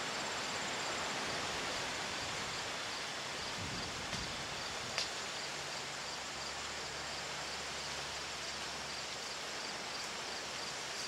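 Steady outdoor background noise like air and rustling grass, with a faint insect chirp repeating at an even pace and one faint click about five seconds in.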